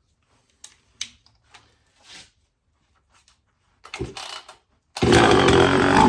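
Homelite Super EZ two-stroke chainsaw being pull-started on a squirt of gas poured into the carburettor: a few light clicks of handling, a rasp of the starter cord about four seconds in, then the engine fires and runs for about a second and a half before dying. A good sign that the saw will run.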